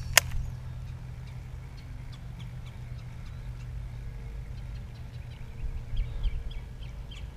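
Steady low rumble on the microphone, with a single sharp click just after the start and faint, short bird chirps from about four seconds in.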